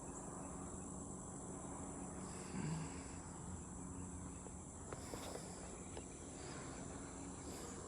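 Steady chorus of crickets trilling, with a brief faint low sound partway through and a few faint clicks a little later.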